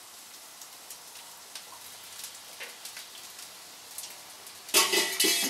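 Rice frying in hot oil in a pan: a steady sizzling hiss dotted with small crackles and pops. Near the end comes a loud, brief burst of noise lasting under a second.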